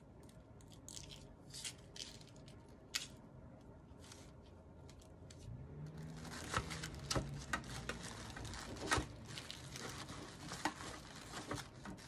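Hands handling an organza gift bag and folding tissue paper over soap bars in a gift tin: soft rustling and crinkling with scattered light ticks, growing denser and louder about halfway through.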